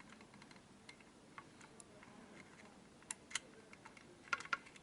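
Light, scattered clicks and taps from handling the opened blood pressure monitor and its small parts, with two sharper pairs of clicks about three seconds and four and a half seconds in.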